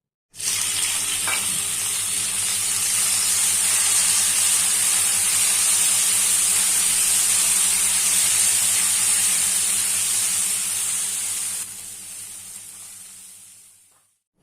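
Food sizzling in hot oil in a pan, a loud steady hiss that starts abruptly and fades away near the end.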